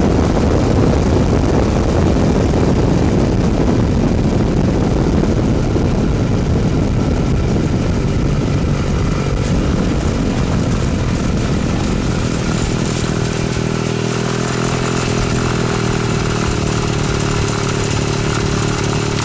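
Weedhopper ultralight's two-stroke engine and propeller running, mixed with rushing wind noise. About twelve seconds in, the wind rush drops away and the engine note becomes steady and clearer.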